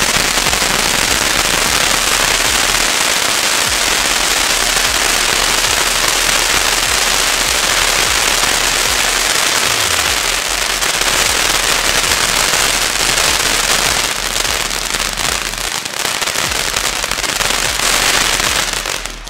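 Several firework ground fountains spraying sparks at once: a loud steady hiss thick with crackling. The sound eases off somewhat about two-thirds of the way through, swells again, then cuts off suddenly near the end.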